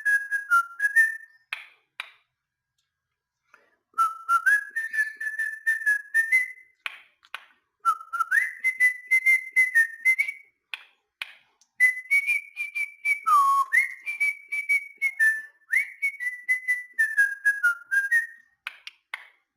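Cockatiel whistling a song: phrases of short whistled notes, many sliding sharply up into a held note, with a pause of about two seconds near the start.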